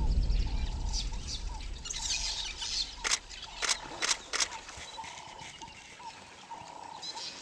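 Field sound at a waterhole: birds calling again and again in short calls, over a low rumble that fades out in the first two seconds. Four sharp splashes come about three to four and a half seconds in, as a wildebeest thrashes in the water.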